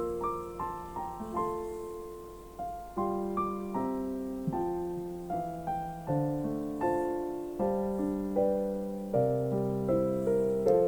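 Soft background piano music: a slow melody of single notes and chords, each note struck and left to fade.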